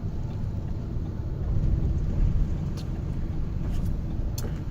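A car driving, heard from inside the cabin: a steady low rumble of road and engine noise that swells slightly in the middle.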